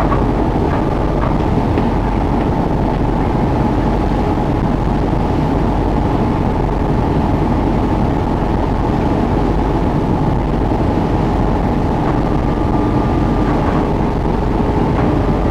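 A boat's engine running steadily while under way, with a faint steady whine above it.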